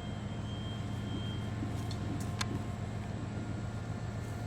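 Steady low hum of background noise, with a faint high tone that stops about a second and a half in and a single sharp click about two and a half seconds in.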